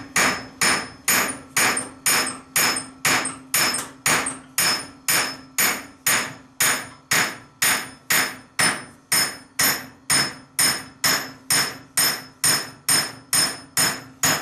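Hammer blows driving an axle bearing into place on a Bolens 1050 garden tractor's rear axle housing. The strikes come at a steady rhythm of about two a second, each with a short metallic ring.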